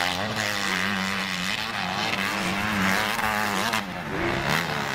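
Motocross bike engine revving on track, its pitch rising and falling with the throttle.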